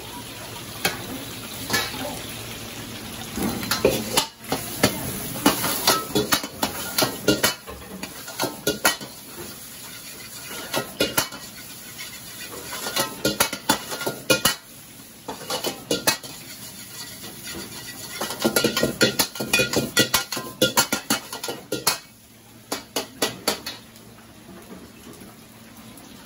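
Metal ladle clanking and scraping against a wok as fried rice is stir-fried, in clusters of quick strikes with pauses between them, over a steady sizzle.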